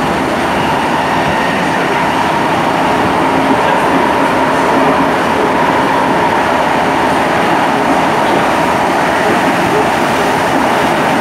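SMRT C151 metro train running at a steady speed, heard inside the car: constant wheel-on-rail noise with a high traction-motor whine held at one pitch.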